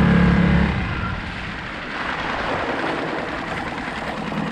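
Small outboard motor on a skiff running with a steady drone that drops away about a second in, leaving the rush and splash of water along the moving hull.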